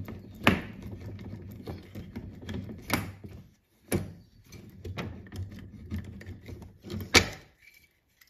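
Irregular metallic clicks and knocks from a hand tool working on the wiper spindle of a VW Karmann Ghia's scuttle panel, with the loudest knock about seven seconds in. Everything stops shortly after.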